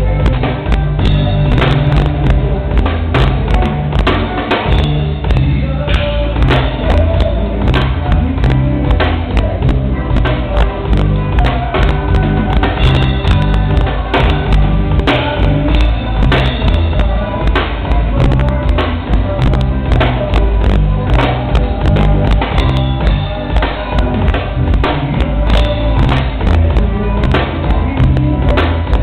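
A band playing, with a drum kit keeping a steady beat over a bass line; the sound is dull, with no top end.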